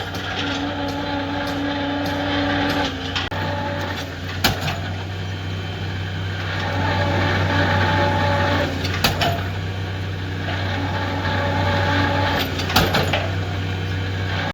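An excavator's diesel engine running steadily under load, with a whine that comes and goes in stretches of a few seconds and a few sharp metallic knocks, about four in all.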